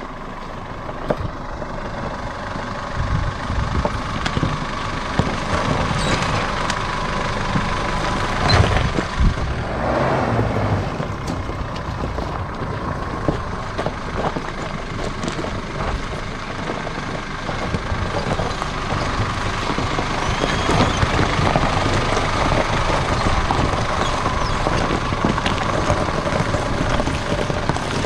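Force Gurkha's diesel engine pulling at low speed up a steep rocky trail, with tyres crunching over loose stones and scattered small stone clicks; it grows louder as the vehicle climbs closer.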